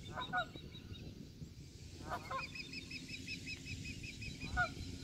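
Canada geese honking in short bursts of one or two calls about every two seconds. A small bird sings a quick series of repeated high chirps behind them.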